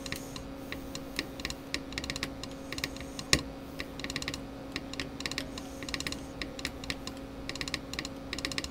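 Hand-operated straight Morse key being keyed, its contacts clicking in quick irregular groups as code is sent, with one louder click about a third of the way in. A steady low electrical hum runs underneath.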